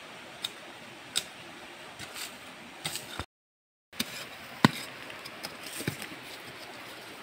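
Scattered sharp knocks and scrapes of a small digging tool and hands working loose soil and stones, about one every second, over the steady rush of a shallow stream; the loudest knock comes a little past halfway. The sound cuts out completely for about half a second just after three seconds.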